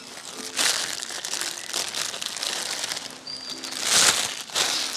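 Packaging crinkling and rustling in several swells as clothes are unwrapped and handled, loudest about four seconds in, over quiet background music.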